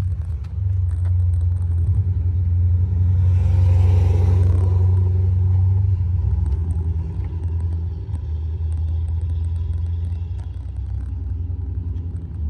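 A steady low rumble, with a louder, hissier swell between about three and six seconds in.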